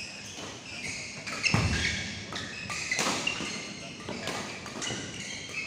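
Badminton rally: rackets striking the shuttlecock in a run of sharp, irregular hits, the strongest about one and a half seconds in, with voices in the hall behind.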